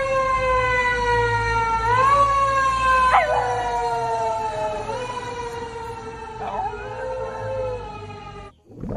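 A Shiba Inu howling along with a passing fire engine's siren: long wavering tones that slide slowly down in pitch and step back up a couple of times. The sound cuts off suddenly near the end.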